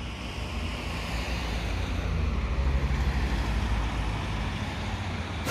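Road traffic going by: a steady low rumble with tyre hiss that swells a little around the middle.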